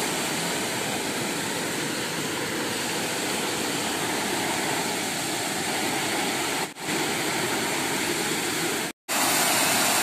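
A small waterfall pours over a weir into a pool, making a steady rushing of water. The sound dips briefly about two-thirds of the way in and drops out to silence for a moment about nine seconds in.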